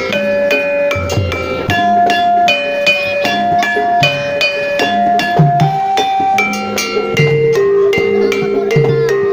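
Javanese gamelan playing jaran kepang accompaniment: bronze keyed and gong instruments struck in a quick steady pulse, their notes ringing on, with low drum strokes now and then.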